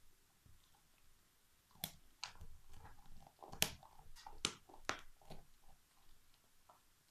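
Alaskan Malamute gnawing a big turkey bone: a run of sharp cracks and crunches of teeth on bone from about two seconds in to about five and a half, the loudest near the middle.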